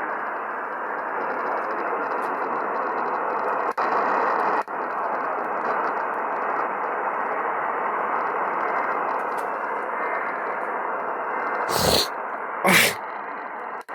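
Steady hiss of static from a radio receiver on a weak signal, dropping out briefly twice about four seconds in, with two short loud crackles near the end.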